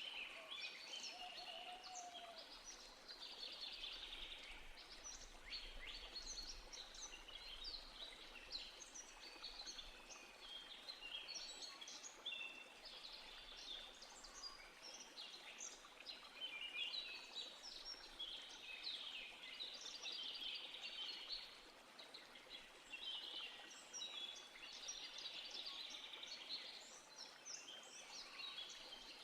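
A chorus of many small birds chirping and singing at once, a continuous faint tangle of short high calls and quick whistles.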